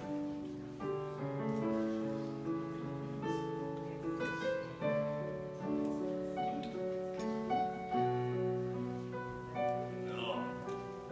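Keyboard playing slow, held chords that change about every second.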